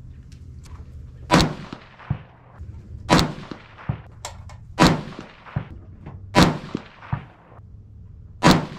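Five rifle shots from a Ruger Precision Rifle in 6.5 Creedmoor, each a sharp crack with a trailing echo, about one every one and a half to two seconds. A fainter crack follows each shot less than a second later.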